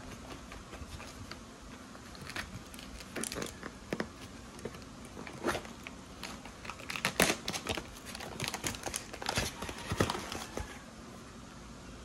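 Plastic packaging crinkling and crackling in irregular bursts as a parcel is unwrapped: a plastic courier bag and an inflatable air-column cushion wrap are handled and pulled apart. The crackles are loudest in the second half and die down near the end.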